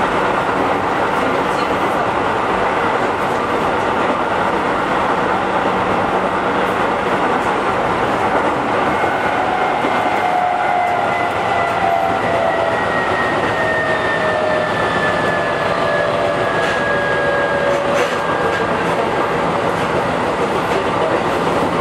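Keihan 5000 series electric train running, heard from inside the car: a steady rumble of wheels on rail. From about nine seconds in, a motor and gear whine slowly falls in pitch until about eighteen seconds.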